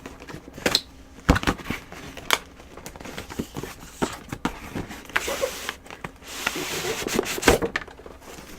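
Cardboard box and packaging being handled and opened: scattered knocks and taps, then a longer rustling, sliding rub from about five seconds in, and a sharp knock near the end.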